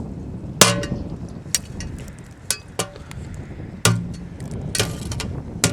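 A frozen piece of rebar striking an ice-encased mailbox to break it open, about seven sharp, irregular knocks. The two loudest knocks are each followed by a short ring.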